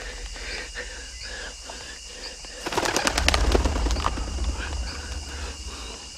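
Forest ambience with birds chirping. About three seconds in, a quick rattling flurry of clicks lasts about a second and a half.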